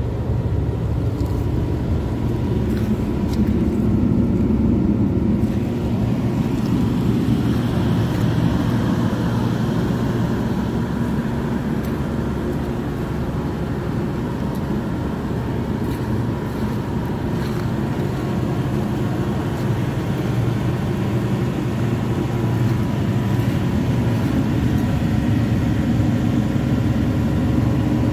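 Isuzu six-cylinder diesel engine of a Hitachi ZX350LC-3 excavator running steadily, a continuous low engine rumble with a steady hum.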